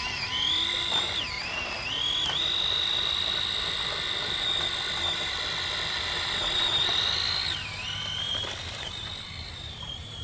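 Axial SCX24 1/24-scale crawler's small brushed electric motor and gearbox whining under throttle as the truck climbs through loose sand. The pitch dips briefly a few times early on, holds steady for several seconds, then drops and settles lower near the end as the throttle eases.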